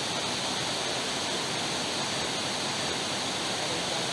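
Waterfall cascading over boulders: a steady rush of falling water.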